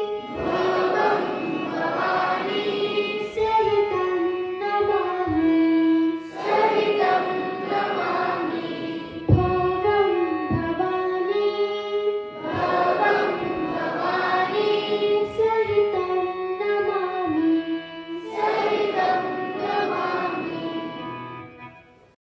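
An Indian song sung by a group of voices over steady instrumental accompaniment, in repeated phrases, fading out near the end.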